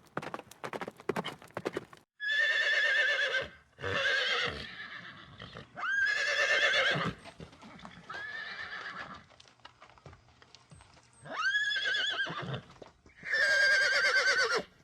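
Horse hoofbeats clattering for about two seconds, then a horse neighing six times. Each whinny is a quavering call of about a second or more, the fourth one fainter.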